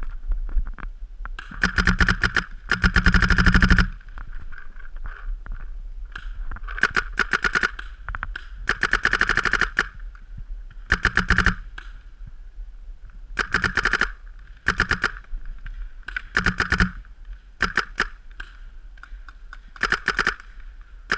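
Paintball marker firing in rapid strings of shots, many a second, close to the microphone: about ten volleys, the longest just over a second, with short gaps between them.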